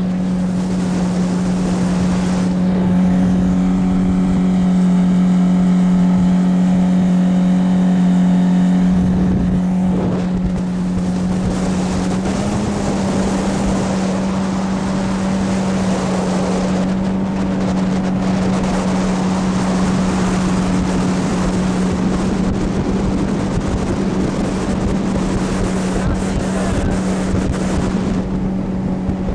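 Jet-drive outboard motor on a Triton aluminum boat running steadily at speed: a constant engine drone with water and wind rushing past. The engine note shifts slightly about ten to twelve seconds in.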